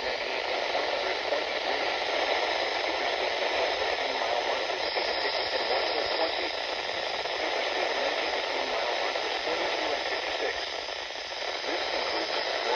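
Radio static: a steady, even hiss from a radio receiver.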